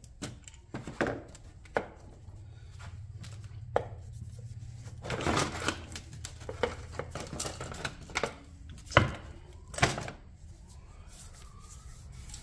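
Metal knocks and clinks as a Club Car golf cart electric motor is taken apart on a steel workbench, its housing, end cap and armature being knocked and pulled free. The blows come irregularly, with a cluster about halfway through and two louder knocks near the end, over a steady low hum.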